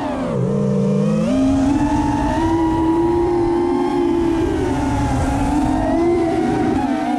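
Chameleon FPV quadcopter's brushless motors and propellers whining. The pitch drops sharply just after the start as the throttle is chopped, climbs back after about a second, then holds and wavers with the throttle.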